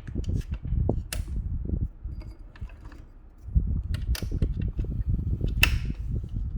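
Singer 328P sewing machine running and stitching through four layers of cotton, with a rapid mechanical pulsing and a few sharp clicks. It slows nearly to a stop about two seconds in and picks up again about a second later.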